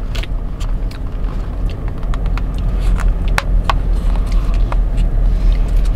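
Low steady rumble inside a car cabin, with scattered small clicks and taps from a small plastic sauce cup being handled.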